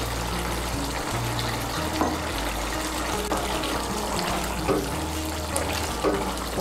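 Pumpkin and potato curry simmering and bubbling steadily in a metal kadai, under soft background music of held low notes.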